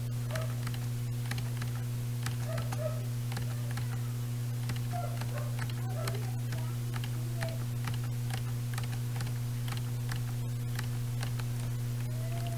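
Typing on a computer keyboard: rapid, irregular key clicks over a steady low hum.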